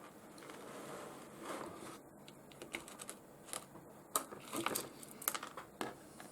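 Small pieces of rough opal clicking and tapping against each other and the surface as they are picked over by hand: a faint, irregular run of light clicks that gets busier about halfway through.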